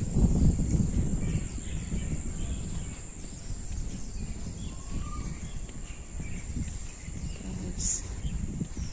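Wind buffeting a phone's microphone outdoors: an uneven low rumble, strongest in the first second, under a steady high-pitched whine. A short rising chirp sounds about five seconds in, and a brief high hiss near the end.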